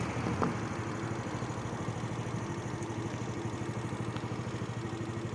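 An engine idling steadily, with an even rapid pulse and a low hum.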